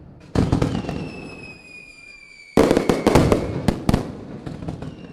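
Fireworks sound effect: two sudden bursts, each followed by crackling that dies away, with a thin high whistle falling slowly in pitch between them.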